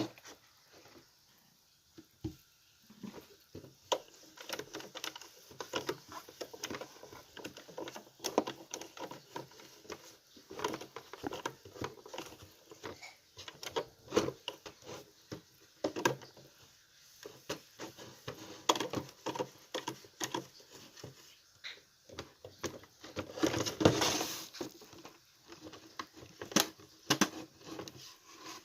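Hand-cleaning a microwave oven: irregular rubbing, wiping and light knocks and clicks against its inside, with a longer spell of steady rubbing about two-thirds of the way through.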